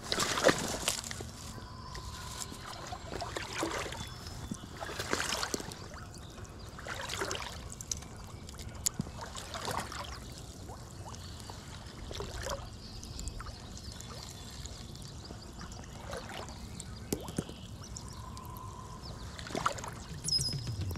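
Water sloshing and splashing, a series of separate splashes at irregular intervals of a couple of seconds, the loudest about half a second in.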